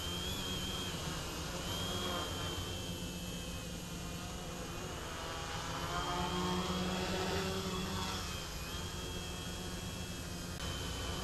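Quadcopter's four brushless NTM 900kv motors spinning 10x4.5 propellers while hovering low, a steady buzzing drone whose pitch wavers up and down as the throttle is corrected, a little louder midway.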